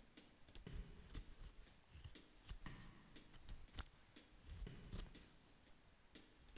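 Scandi-grind fixed-blade bushcraft knife (LT Wright GNS) carving wood, faint short slicing and scraping cuts as it lifts curled shavings, coming at irregular intervals.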